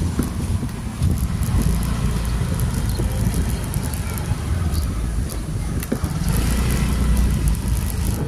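Wind buffeting the microphone of a camera on a moving ride, over a steady low rumble of the vehicle and road.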